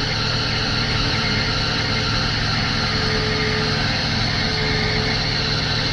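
Diesel engines of Tata Hitachi tracked excavators running steadily, with a faint whine that comes and goes.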